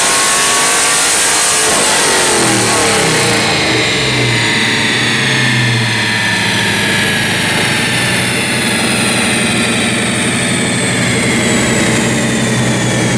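Cammed LS1 V8 of a fourth-generation Camaro SS on a chassis dyno: the full-throttle pull breaks off about two seconds in and the revs drop away, leaving the engine running low and lumpy with a choppy cam note from the exhaust. Meanwhile a high whine falls slowly as the wheels and dyno roller spin down.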